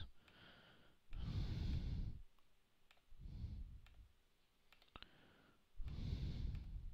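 A few sharp computer mouse clicks, with three breaths puffing onto a close microphone about one, three and six seconds in.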